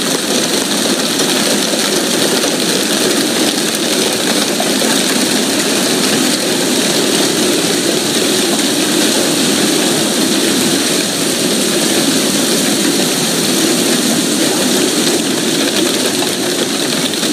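Heavy hailstorm: hail and rain pelting the ground, lawn and parked vehicles in a dense, steady roar.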